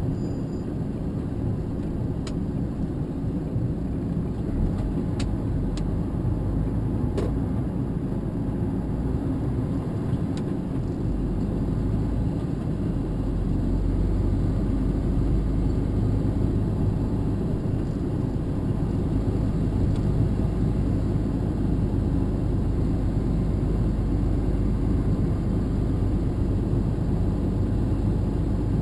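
Steady engine and road rumble heard from inside a moving vehicle's cab, growing a little louder about halfway through, with a few faint clicks in the first several seconds.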